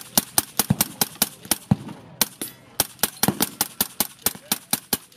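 Suppressed AR-15-style rifle in 5.56 firing rapid semi-automatic shots, about five a second, with a brief pause around two seconds in.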